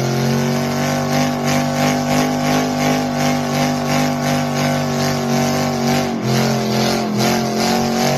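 Car engine running loudly at steady, raised revs, with a slight regular pulse; its pitch dips briefly about six seconds in, then holds again.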